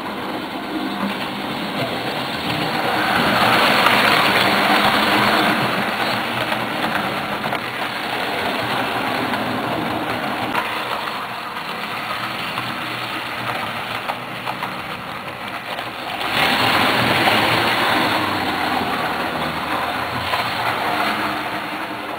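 HO scale model train running on the layout's track. A steady running noise that gets louder twice, a few seconds in and again about two-thirds of the way through, as the train passes close by.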